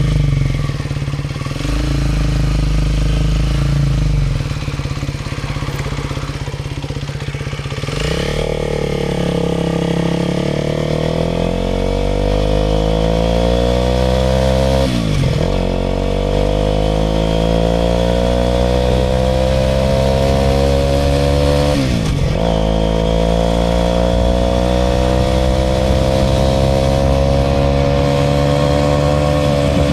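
Aprilia RS4 125's single-cylinder four-stroke engine running low and steady, then accelerating from about eight seconds in with its pitch climbing. It drops sharply at two upshifts, about halfway through and again a few seconds later, and climbs again after each.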